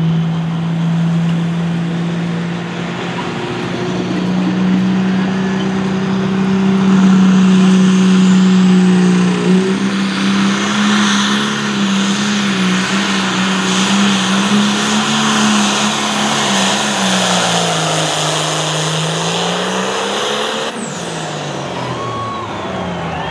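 A pro stock pulling tractor's turbocharged diesel engine running flat out through a pull. Its pitch holds steady under the sled's load with small wavers, sags and recovers late in the pull, then falls away near the end as the pull finishes.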